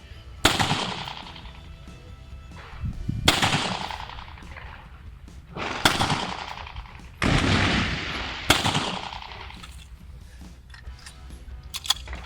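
Pistol shots fired one at a time, each sharp crack trailing off in echo, a few seconds apart: a string of handloaded rounds crimped to 9.55 mm being fired over a ballistic chronograph.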